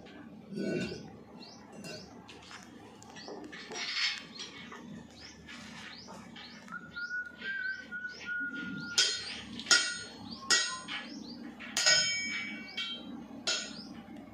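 Small birds chirping over and over, then from about nine seconds in a hammer striking metal, several clanging blows roughly a second apart, each with a short ring.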